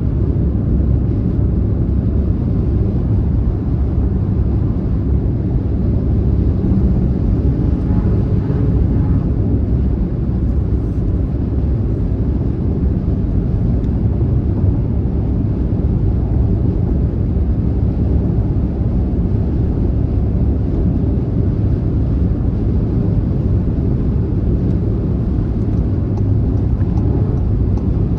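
Car driving at highway speed: a steady, deep rumble of tyre and road noise with the engine under it, unchanging throughout.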